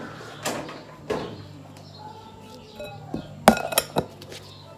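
Knocks and glassy clinks as a plastic lid is pressed and snapped onto a glass bowl, with the loudest cluster of snaps about three and a half seconds in.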